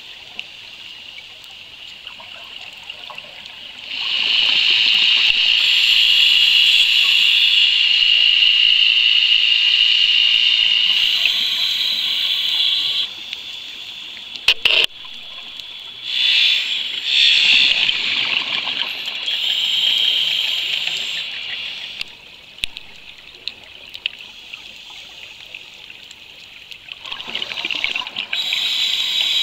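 Underwater bubbling and hiss of a scuba diver's exhaled air rising past the camera, in bursts with quieter gaps: a long burst from about four seconds in, then shorter ones later.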